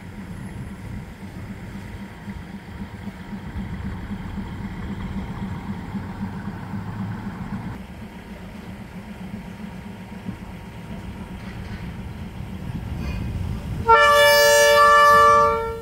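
Low rumble of a State Railway of Thailand passenger train pulling out of the station. About 14 seconds in, a loud train horn sounds a chord of several steady tones for nearly two seconds, then cuts off.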